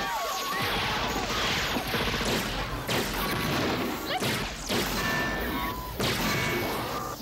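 Movie action-scene sound effects of a giant combat robot on a rampage: a dense, loud run of crashes and impacts that starts and stops several times.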